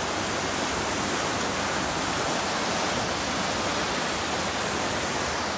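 Fast-flowing mountain river rushing over rocks in white-water rapids: a steady, even rush of water.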